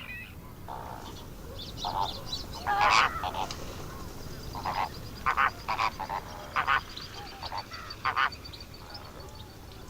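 Greater flamingos calling: a scatter of short honking calls, about a dozen, spaced irregularly, with a faint high rapid ticking behind them from about four seconds in to near the end.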